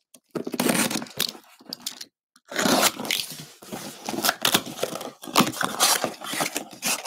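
Cardboard box being opened by hand: flaps pulled open and the contents slid and scraped against the cardboard, an irregular run of scraping, rustling and tearing noises with a short pause about two seconds in.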